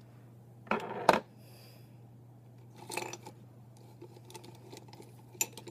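Small plastic makeup containers and tools being handled and set down: short clicks and rattles, the sharpest about a second in and another cluster about three seconds in, over a steady low electrical hum.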